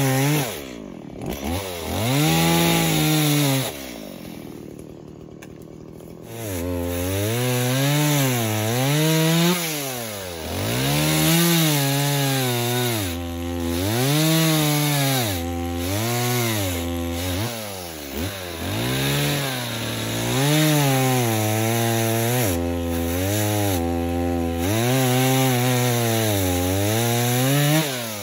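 Gas chainsaw bucking a downed tree: the engine revs up and down over and over as it is throttled into the cut. It drops to a quieter idle about four seconds in, then goes back to cutting about two seconds later.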